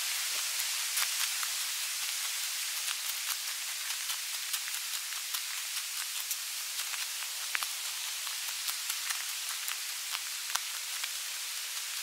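Footsteps on a gravel and leaf-strewn forest trail, sped up to three times normal speed: a quick, irregular patter of light crunching clicks over a steady hiss.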